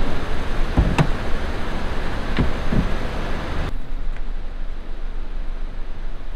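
Steady low rumble and hiss around a parked car with its door open, with a few short knocks about a second in and again around two and a half seconds. The high hiss drops away abruptly a little past halfway.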